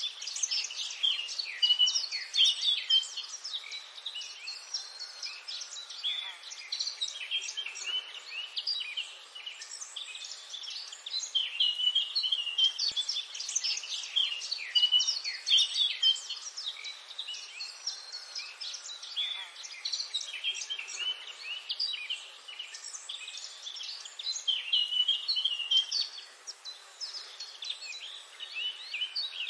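Many small birds chirping and twittering at once in a dense, continuous chorus of short high chirps.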